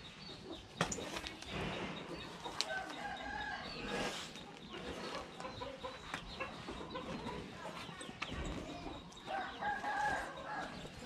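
Farmyard chickens clucking, with a rooster crowing twice.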